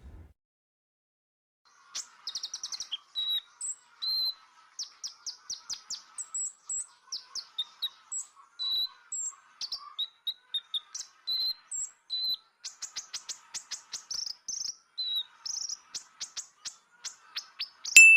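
Birdsong: a long string of quick chirps, rapid trills and short whistled notes, starting about two seconds in, over a faint wavering chirr in the background.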